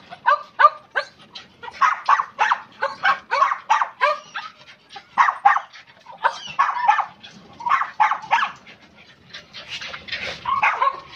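Several caged dogs barking, short barks following each other a few a second, sometimes overlapping.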